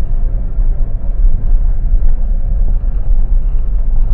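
A vehicle driving on a road, with a steady low rumble of engine and tyres.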